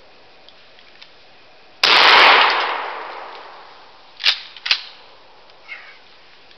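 A single blast from a Stevens Model 620 12-gauge pump shotgun about two seconds in, its report trailing off over a second or two. About two seconds later come two sharp clacks, close together, as the slide is worked back and forward to chamber the next shell.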